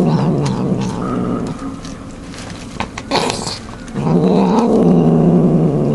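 Domestic cat growling low while eating, guarding its food. The growl eases off in the middle, with a brief noisy burst about three seconds in, then comes back louder from about four seconds.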